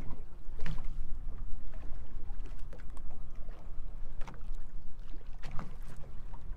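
Wind rumbling on the microphone and water slapping the hull of a small boat drifting at sea, with a few brief knocks about a second in and again near the end.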